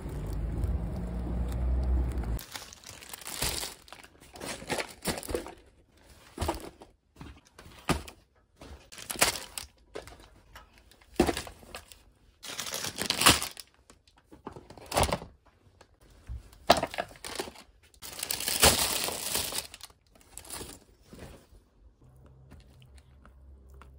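Wind rumbling on the microphone for about two seconds. It cuts off, and then come repeated bursts of crinkling and rustling as plastic grocery packaging is handled, including the shrink-wrap around a six-pack of cans.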